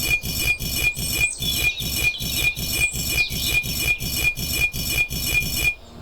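Rhythmic back-and-forth strokes of a hand tool working wood, such as a small saw or file, about three strokes a second, with a faint ringing tone on each stroke. The strokes stop abruptly near the end.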